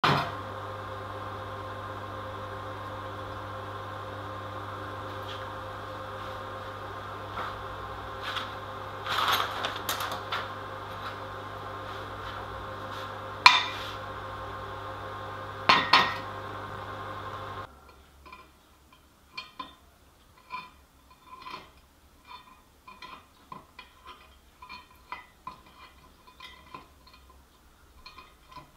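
Metal clinks and taps as a steel nail, a stick-welding electrode holder and its rod are handled against a steel tube on a steel welding table. For the first two thirds a steady hum runs under a few sharp clinks; it then cuts off suddenly, and a run of light, irregular metal ticks follows.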